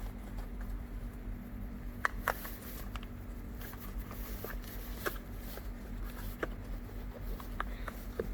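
Scattered light clicks and taps as rubber and plastic parts (seal, dust boot, bump stop) are handled and pressed onto a new shock absorber, a tight fit. A steady low hum runs underneath.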